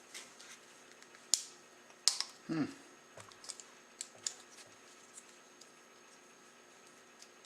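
Small plastic model-kit parts clicking and tapping as they are handled and pressed together: two sharp clicks in the first couple of seconds, then a few faint ticks.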